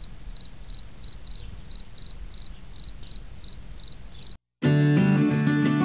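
Cricket chirping, a regular high chirp about three times a second over a faint low hum. It cuts off abruptly about four seconds in, and after a brief gap, strummed acoustic guitar music begins.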